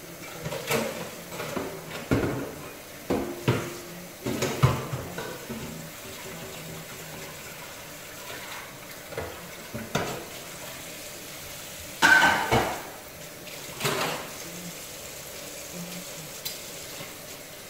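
Creamy sauce bubbling in a lidded pot on the stove, a steady low hiss, with irregular clatters and knocks of pots and utensils: a cluster in the first few seconds, the loudest about twelve seconds in and another shortly after.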